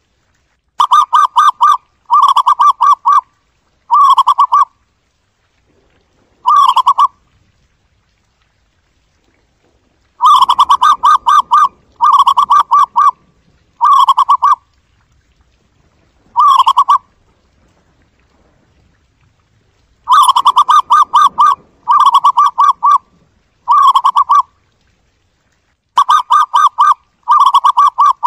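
Zebra dove calling: about a dozen short, rapid, trilled cooing phrases, each under a second or so, coming in clusters of two to four with pauses of a couple of seconds between.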